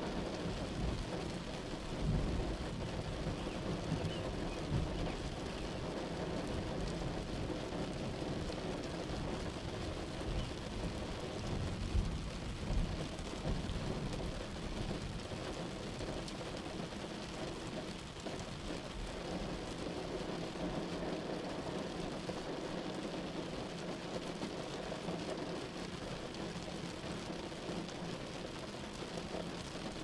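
Steady rain with low rumbles of thunder, the strongest about two seconds in and again around twelve seconds in.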